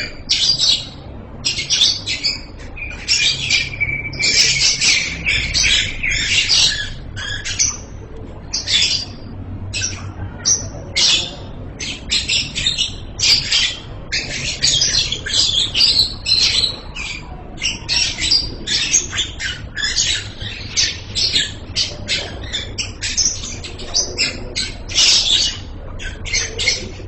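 Lovebird singing in long, shrill chattering runs of rapid high chirps, with a held whistled note a few seconds in.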